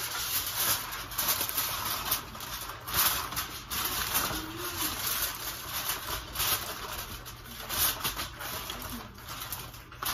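Aluminium foil crinkling and rustling in repeated crackly bursts as a sheet is spread and pressed down over a baking pan.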